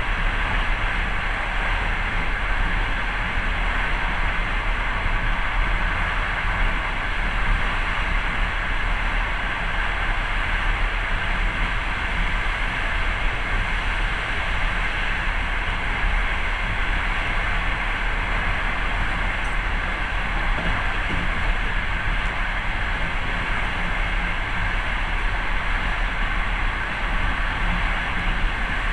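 Passenger train in motion, heard from inside the carriage: steady rumble and rolling noise of wheels on the rails, unchanging throughout.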